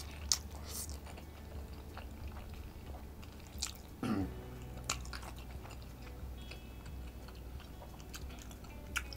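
A man chewing and slurping mouthfuls of creamy fettuccine carbonara close to the microphone, with wet mouth clicks every second or so and a longer slurp about four seconds in.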